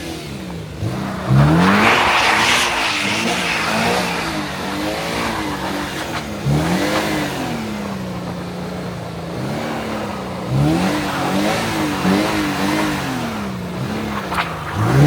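Toyota GR86's flat-four engine revving up and dropping back again and again as the car drifts with its rear wheels spinning in snow. There is a sharp rev about a second in, followed by a burst of hiss.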